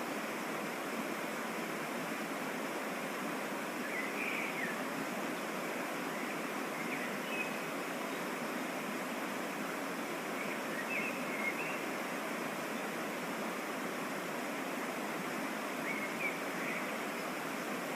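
Waterfall rushing steadily, an unbroken wash of falling water.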